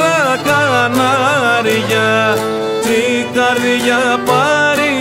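Instrumental interlude of a Greek folk song: a violin plays a gliding, ornamented melody over plucked lutes (laouto and lavta) keeping a steady rhythm.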